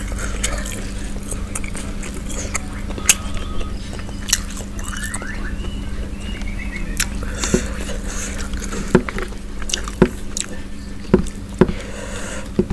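Close-up chewing and crunching of crispy fried chicken, with sharp crunches at irregular intervals, growing more frequent in the second half, over a steady low hum.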